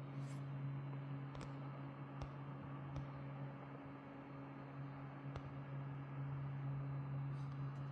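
Steady low hum of running machinery over a soft hiss, with a few faint light clicks scattered through it.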